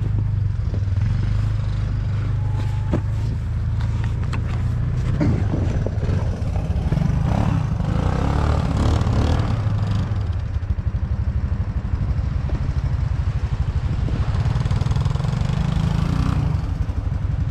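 An all-terrain vehicle's engine running steadily under way on a snow ride. Scattered clattering knocks come in the first few seconds, and bouts of rushing noise come around the middle and near the end.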